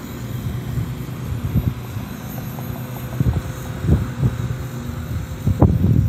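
Electric RC helicopter (Walkera V450D03) flying overhead with a steady low hum, while gusts of wind buffet the microphone in irregular low rumbles that are strongest near the end.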